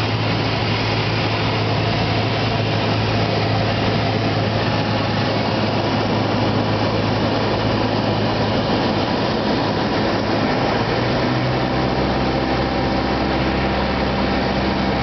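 Single-engine Cessna's piston engine and propeller droning steadily, heard inside the cockpit during the descent to land. About eleven seconds in, the engine note changes.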